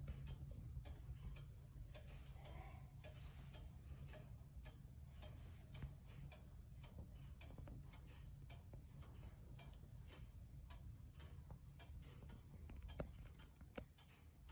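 Antique Junghans eight-day pendulum wall clock ticking steadily and faintly, about two ticks a second, with one sharper click near the end.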